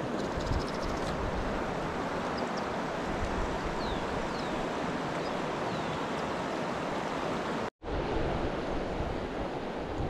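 Steady rush of a shallow river flowing over a rocky bed. A few faint high chirps come in the first half, and the sound cuts out for an instant about three quarters of the way through.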